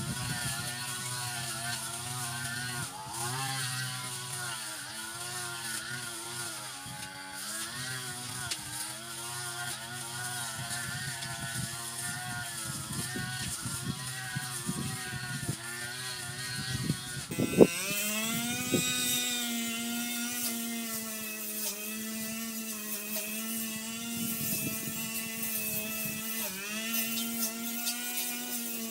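Brush cutter engine running, its pitch rising and falling as the throttle changes while it cuts grass. A little past the middle there is a sharp knock, after which the engine runs at a steadier pitch.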